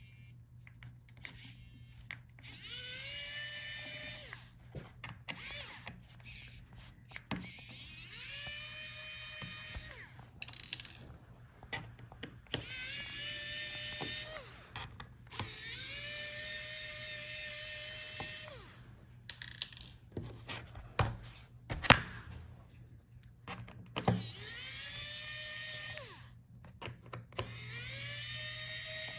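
Electric precision screwdriver with a T5 Torx bit backing out the laptop's bottom-cover screws: about six short runs of a motor whine, each rising in pitch as it spins up and then holding steady. Clicks and taps come between the runs, the sharpest about three-quarters of the way in.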